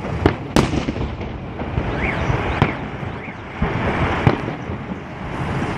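Festive aerial fireworks going off: several sharp bangs at uneven intervals over a continuous crackle of bursting shells.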